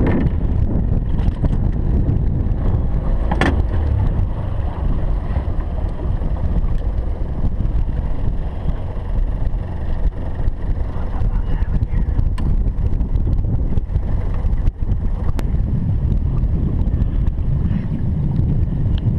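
Steady low wind buffeting on the camera microphone, with a few sharp clicks from handling a walleye in a metal-framed landing net.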